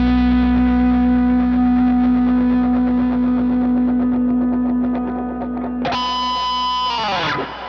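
Distorted electric guitar: a held chord rings out and slowly fades, then about six seconds in a bright new note sounds and its pitch drops sharply a second later before dying away.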